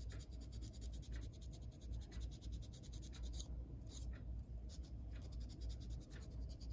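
Faint scratching of a Scotch-Brite pad scrubbing a model locomotive's metal pickup contacts, in strokes about once a second.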